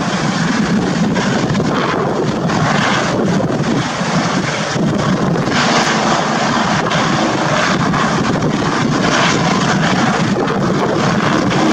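Helicopter flying low and descending toward a landing: a steady, loud mix of main-rotor noise and turbine engine whine. It grows slightly louder near the end as it comes closer.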